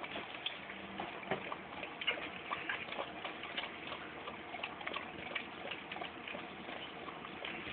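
Whoodle mother dog licking her newborn puppy clean just after birth: an irregular run of short, wet clicks and smacks from her tongue and mouth.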